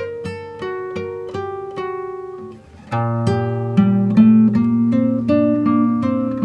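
Background acoustic guitar music: a run of plucked notes that thins out briefly about two and a half seconds in, then comes back fuller over a held low note.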